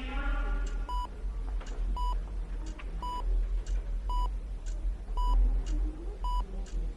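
Hospital heart monitor beeping steadily, one short single-pitched beep about once a second, with a clock ticking between the beeps. A steady low hum of room ambience runs underneath.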